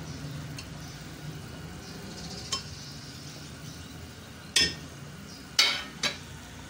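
A metal ladle stirring a pot of boiling meat stock, clinking against the metal pot a few times. The clinks are sharp and ring briefly, the loudest in the last two seconds, over a steady bubbling.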